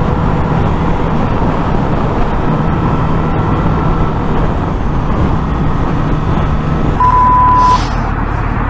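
Honda CBR1000RR inline-four engine running at freeway speed under heavy wind and road noise. About seven seconds in, a steady high beep sounds for just under a second.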